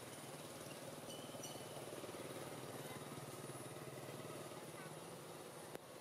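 A faint small engine running steadily: an even low hum that swells a little in the middle. Faint high chirps sound over it, and there is a single sharp click near the end.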